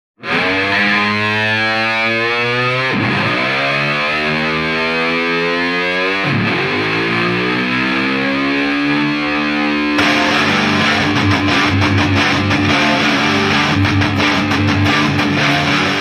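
Rock music with a distorted electric guitar holding long notes that bend upward, restarting every few seconds. Drums come in about ten seconds in.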